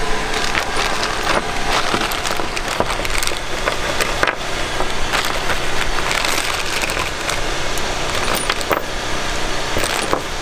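Plastic parts bag crinkling and rustling in the hands as a new gasket set is unwrapped, with scattered small clicks of handling, over a steady low background rumble.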